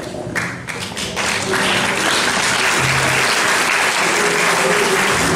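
Audience applauding: the clapping builds over the first second and a half, then holds steady and full. A few plucked string notes from the ensemble's lutes sound underneath near the end.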